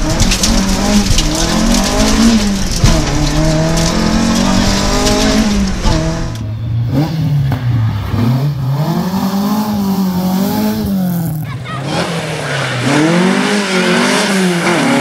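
Opel Kadett GTE Group 2 rally car's four-cylinder engine revving hard, its pitch climbing and dropping again and again through gear changes. It is first heard from inside the cabin with a deep rumble underneath, then from the roadside as the car passes, the engine note rising and falling in several sweeps.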